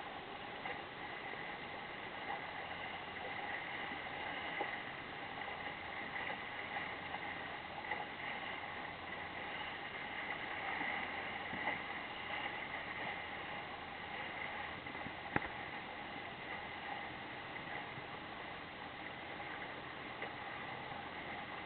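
Water rushing steadily along a small sailing dinghy's hull under sail, with wind noise, a few light knocks and one sharp click about two-thirds of the way through.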